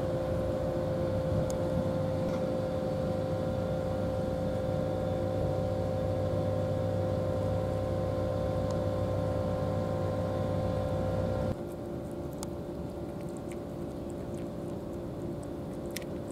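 A steady engine drone at a constant pitch that drops abruptly to a quieter level about eleven seconds in, with a few faint clicks afterwards.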